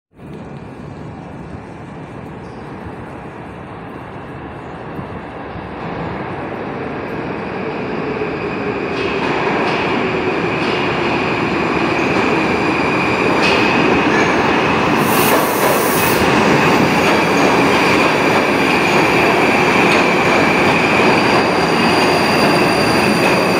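A Moskva-2024 (81-775/776/777) metro train running in from the tunnel and along the station platform. Its rail noise builds over about ten seconds, then holds loud as the cars pass, with steady high whining tones over the noise.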